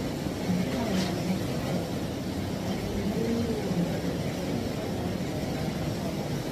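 A steady low rumble, with faint voices and a single click about a second in.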